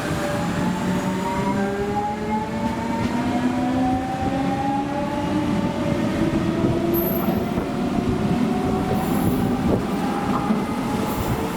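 CP Lisboa suburban electric multiple unit accelerating along the platform: its traction motors give a whine that rises slowly in pitch over steady wheel and rail rumble, with a brief squeal about seven seconds in.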